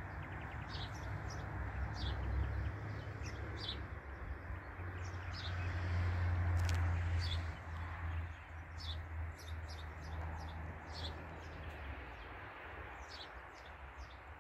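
Small birds chirping: many short, high chirps scattered throughout, over a low, uneven rumble that swells about six seconds in.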